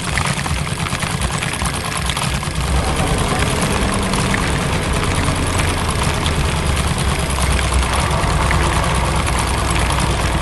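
Heavy construction machine's diesel engine running steadily, with a low rumble under a dense, fast rattle.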